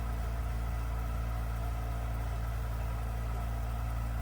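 3D-printed flat lap machine's motor running steadily with a low hum while an opal is ground down on the spinning lap.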